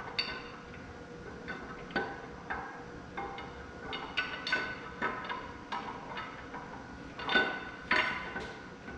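Irregular sharp metallic clinks and knocks, each ringing briefly, loudest near the end. These are tools and parts knocking against a bare cast-iron tractor engine block during teardown.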